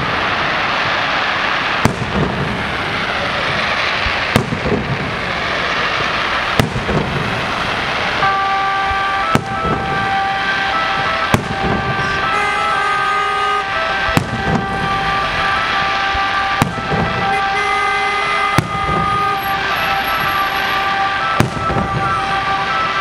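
Aerial fireworks shells bursting with a sharp bang every second or two over a continuous hiss. From about eight seconds in, a steady pitched tone with overtones runs underneath.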